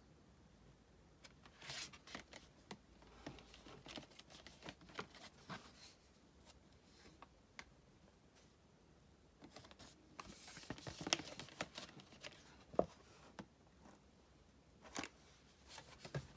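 Hands handling and opening album packaging: soft rustling of paper and packaging with scattered light clicks and taps, in two busy stretches with a quiet pause between. The sharpest taps come near the middle of the second stretch.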